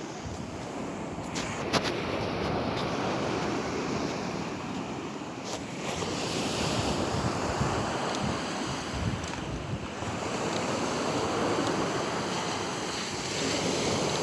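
Sea waves and water splashing, with wind buffeting the microphone; a few brief clicks about a second and a half in and near the middle.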